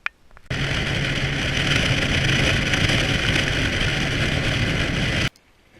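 A loud, steady rush of a motorboat running under way, with wind noise and a low engine hum. It starts abruptly about half a second in and cuts off abruptly near the end.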